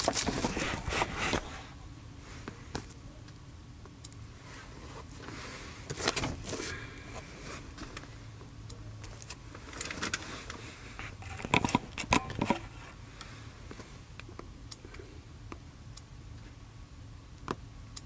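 Handling noise from a scan-tool tablet being moved, set in place and tapped: scrapes, knocks and taps in a few short clusters, over a low steady hum.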